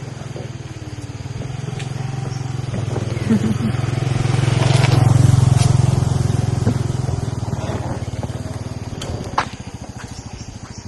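A motor vehicle engine going past, growing louder to its peak about halfway through and then fading away.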